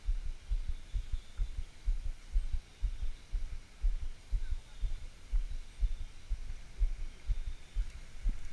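Wind buffeting an action camera's microphone: irregular low rumbling thumps, several a second.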